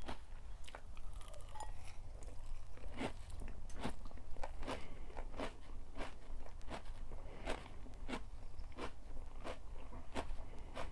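Close-miked chewing of crunchy food: regular crisp crunches, about one every 0.7 seconds.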